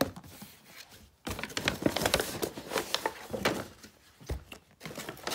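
Plastic lotion and shower-gel bottles being handled and set down on a fabric bedspread: a run of rustling, crinkling and light plastic knocks, with a click at the start and a soft knock near the end.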